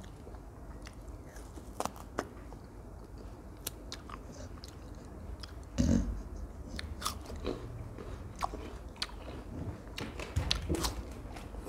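Crisp bites and chewing of raw jicama pieces, a scatter of short crunches, with a short voice-like sound about six seconds in.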